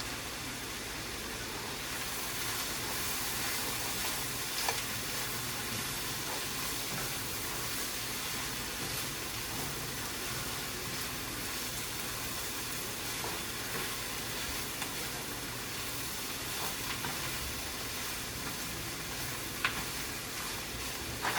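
Chopped onions, sweet peppers and garlic frying in a little canola oil in a pan: a steady sizzle, with a couple of faint clicks.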